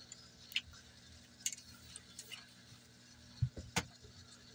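A few light clicks and knocks as wooden-stocked Daisy Red Ryder BB guns are handled and moved on a cloth-covered surface, with a soft knock about three and a half seconds in followed by a sharper click.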